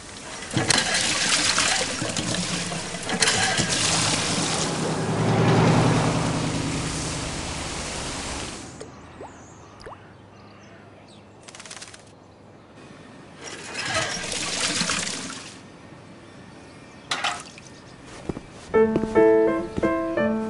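Water gushing from a hand-operated water pump into a metal bucket for about eight seconds, then a quieter stretch broken by a few short rushing sounds. Music with distinct pitched notes starts near the end.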